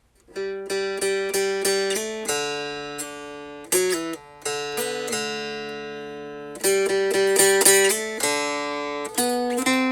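Music played on a plucked string instrument, picking out a melody note by note with some notes left to ring.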